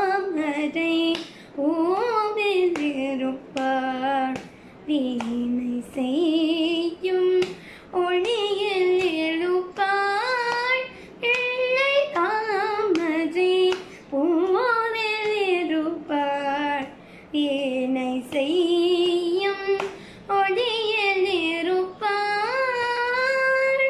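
A young girl singing a Carnatic song solo and unaccompanied, her voice sliding and wavering around long held notes between short breaths. Light taps mark the beat as she keeps the tala with her hand on her lap.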